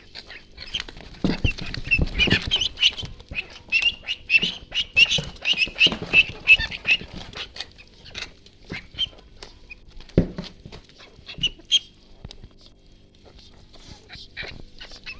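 Ducklings peeping: many quick high chirps, crowded together through the first half and thinning out later, with a few soft knocks mixed in.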